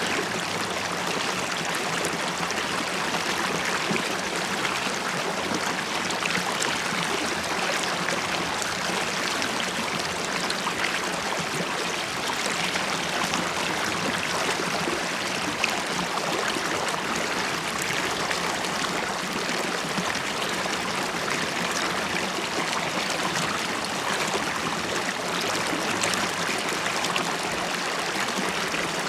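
River water flowing steadily over stones, a continuous rushing with gurgling and bubbling.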